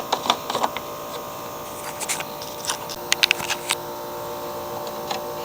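A handful of sharp clicks and knocks from handling a push mower's fuel cap and oil dipstick, including a quick cluster about three seconds in, over a steady hum.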